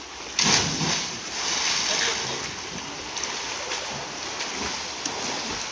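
A person in a lifejacket jumping from balcony height into a swimming pool: one loud splash about half a second in, then water churning as they swim, with voices in the background.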